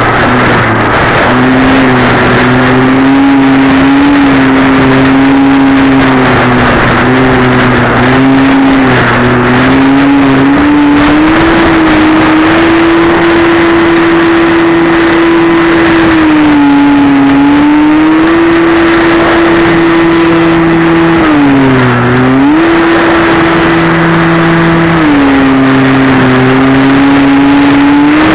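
E-Flite Park 450 brushless motor spinning an APC 7x5e pusher propeller on a Multiplex Easy Star II, heard from the plane's onboard camera as a loud buzzing drone over a rush of air. Its pitch steps up and down with the throttle and dips sharply once, a little over twenty seconds in.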